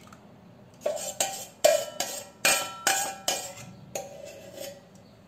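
A steel spoon knocking and scraping against the rim of a stainless steel pot to get the last of the kulfi milk into a bowl: about eight sharp metallic clinks, each ringing briefly, starting about a second in and dying away near the end.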